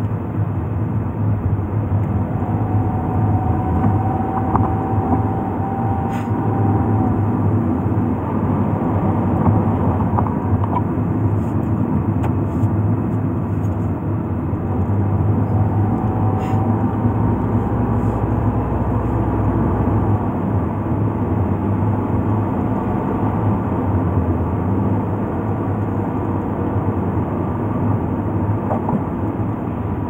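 Steady road noise heard inside a moving car: engine and tyres rumbling on wet pavement.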